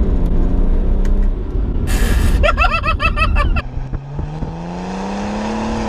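BMW 335d estate's twin-turbo straight-six diesel, stage 2 remapped and with a modified exhaust, pulling hard under acceleration: a steady note just after a gear change, then, after a brief gap with a quick run of high chirping, the engine note rises steadily as the car accelerates again.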